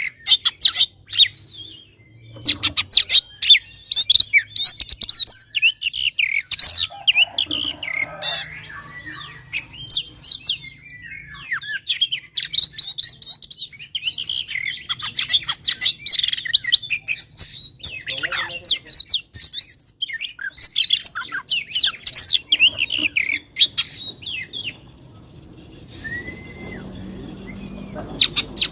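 Oriental magpie-robin (kacer) singing a fast, loud fighting song of rapid chirps, clicks and short rising and falling notes: a male's aggressive challenge call to rivals. Near the end the song stops and one flat, steady whistled note sounds.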